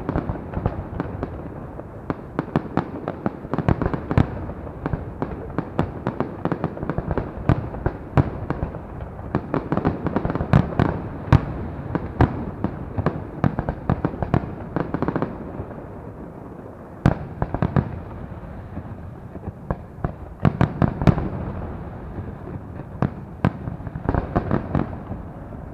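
Fireworks going off in a dense, irregular barrage: a near-constant crackle of many small bangs, with louder single bangs standing out here and there.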